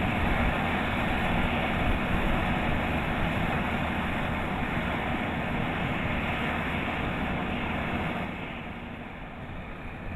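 Kubota DC-105X combine harvester's diesel engine and threshing machinery running steadily while harvesting rice, easing off slightly near the end.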